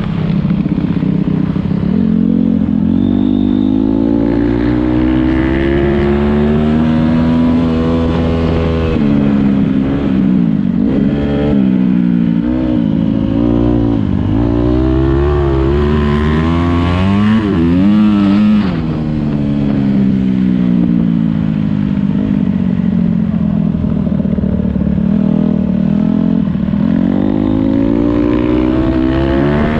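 Motocross bike engine revving as it rides, its pitch repeatedly climbing and dropping back through gear changes, with a quick series of short throttle swings in the middle.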